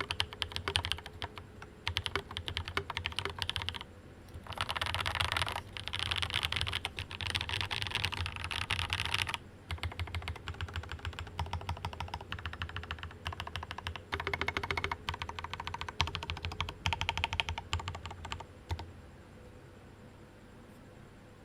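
Fast typing on a Rama Works Kara mechanical keyboard with lubed Cobalt POM linear switches and ABS Cherry-profile keycaps: a dense run of key presses and returns, quickest a few seconds in. The typing stops near the end.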